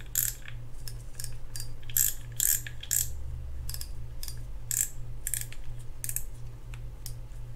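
Shimano TX2000F spinning reel's drag clicking in irregular clicks as the spool is turned by hand against it. The drag is being tested with a newly fitted pre-greased drag washer.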